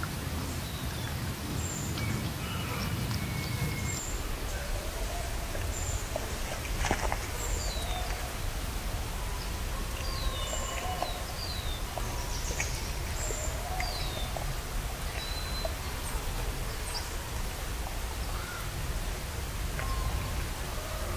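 Outdoor woodland ambience: a steady low rumble of background noise with birds chirping, short high calls and sweeping whistles scattered throughout.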